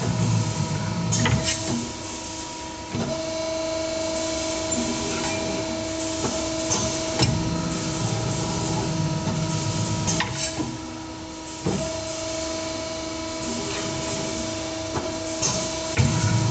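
Evaporator tube bending machine working on aluminium hairpin tubes. It gives a steady motor hum throughout, with a low rumble in the first second and again near the end. Sharp clicks and knocks from the pneumatic clamp and bending tooling come about a second or more apart.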